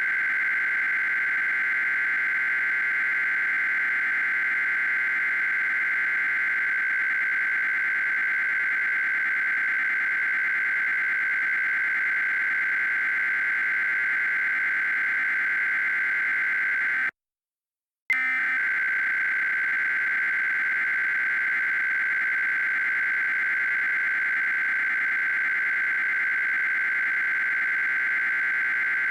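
Steady high-pitched electronic data tone, the two-frequency modem signal of an Emergency Alert System SAME header. It cuts out completely for about a second, about 17 seconds in, then resumes unchanged.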